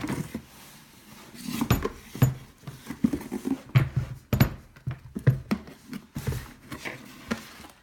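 Irregular rustling, crinkling and soft knocks as packaged replacement scooter tires and inner tubes are handled and taken out of a box.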